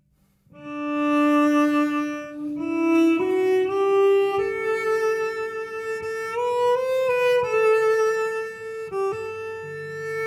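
Yamaha SVC 210 silent cello being bowed in a short, slow celebratory tune. After about half a second of silence, held notes climb step by step, with vibrato on the highest notes about two-thirds of the way through.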